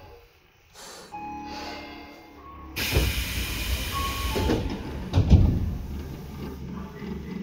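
Tobu 10030 series electric train running, heard from inside the car directly above its line breaker: a low steady rumble with a few steady tones. About three seconds in, a sudden loud hiss lasts a second and a half, and a heavy low thump follows a couple of seconds later.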